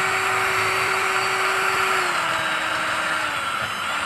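Electric drill running steadily with a drill bit boring out a stripped threaded hole in a metal front spindle, enlarging it for a helicoil insert. The motor's pitch sags about halfway through as the bit bites harder, then picks back up near the end.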